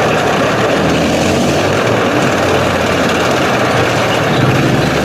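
A loud, steady motor-like drone with a strong rushing hiss over it, unchanging throughout.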